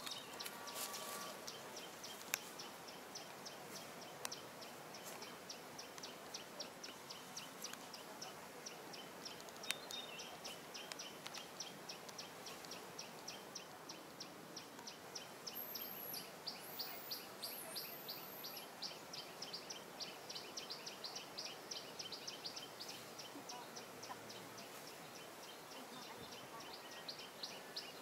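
Outdoor background of steady, rhythmic high-pitched chirping, one short chirp repeated about four times a second, with a few faint whistles partway through. A couple of sharp clicks sound in the first few seconds.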